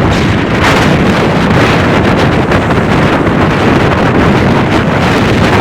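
Hurricane-force wind buffeting the microphone: loud, steady, rumbling wind noise with no break.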